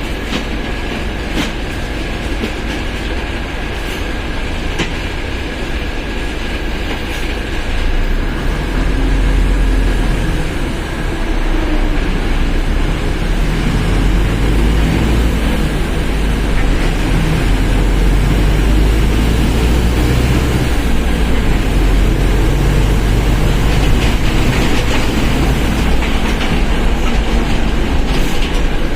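Mercedes-Benz OF1721 BlueTec 5 bus under way: continuous engine and rolling rumble with a thin steady whine from the differential. The rumble grows louder as the bus gathers speed, about eight to twelve seconds in.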